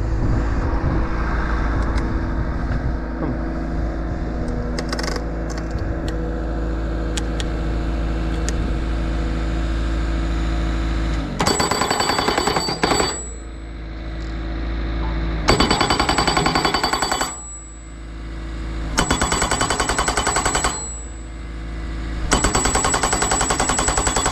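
Engine running steadily. About 11 s in, a post pounder starts driving a blunt-ended wooden fence post: four bursts of rapid hammering, each lasting about one and a half to three seconds, with short pauses between them.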